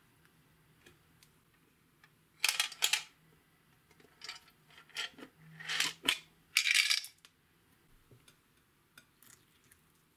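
Hard makeup compacts clicking and clattering as they are handled over a glass bowl, in several short bursts of sharp clinks.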